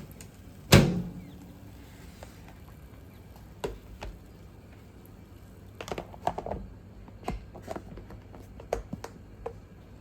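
A loud single knock or thud about a second in, with a short ringing tail, followed by scattered light clicks and knocks of handling in a small room.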